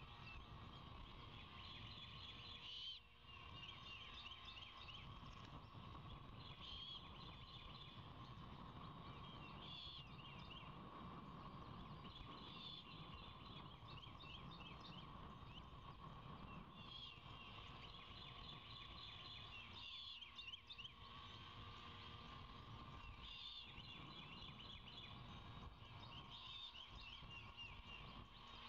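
Wild birds singing, faint: short series of rapid, high chirps that come back every few seconds over a steady low background hum.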